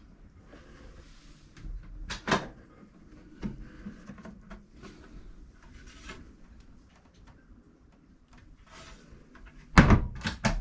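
Knocks and clicks of a boat's engine access cover being handled, opened and shut, with a thud about two seconds in and the loudest thumps near the end.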